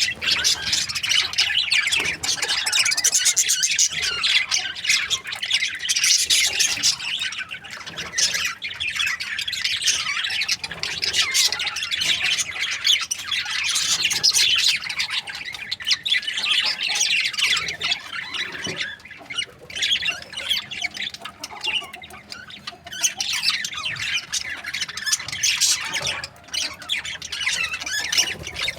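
Many budgerigars chirping and chattering continuously, their calls overlapping into a dense, unbroken din.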